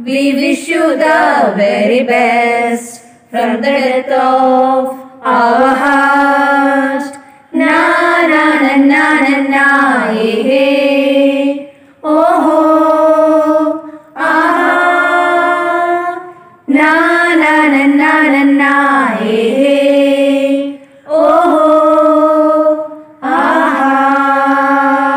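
A woman's voice singing a slow melody without accompaniment, in phrases of about two seconds with held, sliding notes and short breaks between them.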